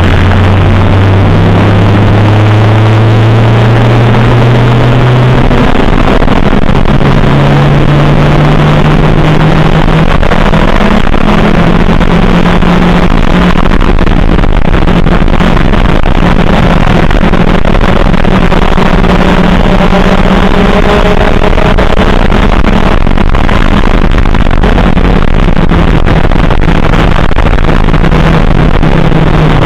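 Race car engine heard from inside the cockpit at speed, its note climbing over the first few seconds, then stepping to a new pitch and rising and falling through the corners. The recording is loud and badly distorted.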